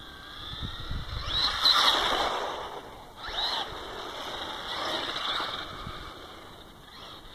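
Traxxas Slash 4x4 radio-controlled truck running on asphalt. Its electric motor whines up in pitch in short bursts of throttle, loudest a couple of seconds in, over a rushing noise from the tyres and drivetrain.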